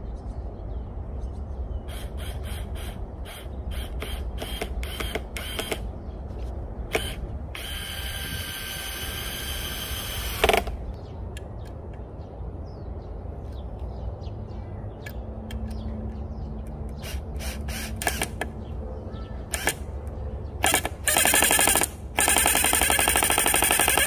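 Cordless drill run in short trigger bursts and longer spells while boring into dead wood. The motor whines steadily for a couple of seconds near the middle, and runs loudest and longest from near the end.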